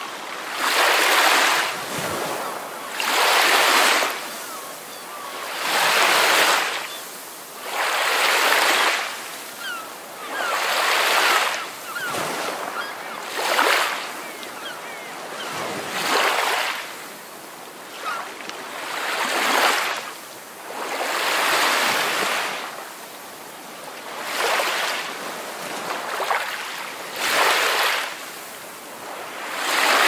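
Ocean surf washing in, swelling and ebbing in regular surges about every two to three seconds.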